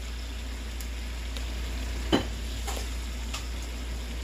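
Soy sauce, oil and water sizzling steadily in a skillet as handfuls of cooked white rice are dropped in, with one sharp knock about two seconds in and a few lighter taps.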